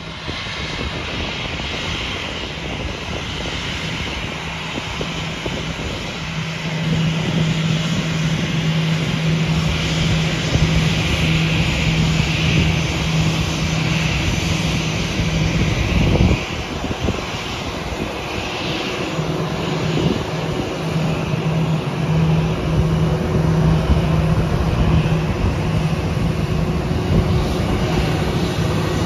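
Narrow-body twin-jet airliner's turbofan engines running at low taxi thrust as it rolls past: a steady hum with a hissing whine on top, growing louder about six seconds in, with a sharp break about 16 seconds in.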